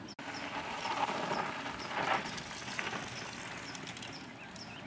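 Mountain bike tyres rushing and skidding over a loose dirt trail as a rider comes through a switchback. The noise swells about a second in and again around two seconds, then fades. A bird chirps repeatedly behind it.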